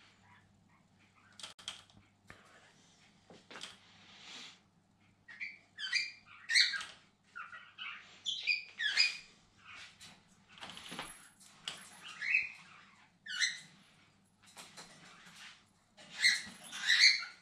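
Pet cockatiels calling over and over in short, pitch-bending chirps that come in bouts and are loudest near the end.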